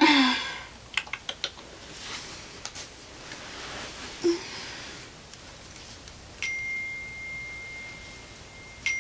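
A few soft handling clicks and rustles, then a phone's message alert chiming twice, about two and a half seconds apart near the end. Each chime is a high ding that rings on as a steady tone.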